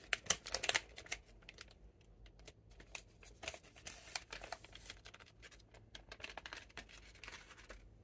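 Foil-lined plastic snack wrapper crinkling and rustling as hands peel it back and slide an ice cream sandwich out. The crackles come irregularly and are loudest within the first second.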